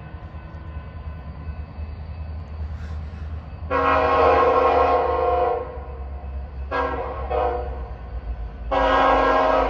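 BNSF freight locomotive's horn sounding a chord of several tones: a long blast about four seconds in, a short one near seven seconds, then another long blast near the end, over the low rumble of the approaching train. This is the tail of the long-long-short-long warning signal for a crossing.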